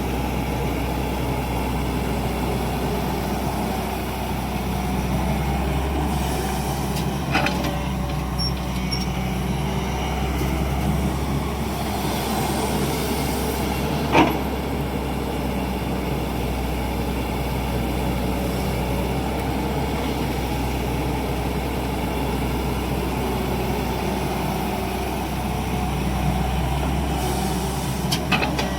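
Hydraulic excavator's diesel engine running steadily while it loads a truck, with a sharp metallic knock about seven seconds in and a louder one about fourteen seconds in.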